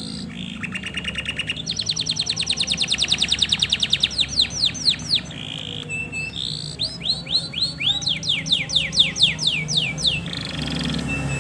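Male domestic canary singing: a fast trill, then a long run of rapid repeated notes that slows into falling whistled sweeps, and after a short break about halfway through, a second series of falling sweeps.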